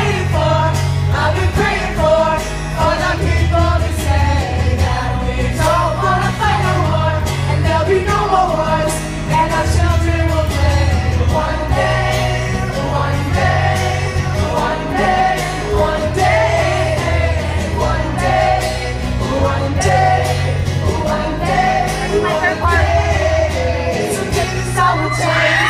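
Live pop band performance heard from the audience: male voices singing a melody over a pulsing bass line and a steady beat.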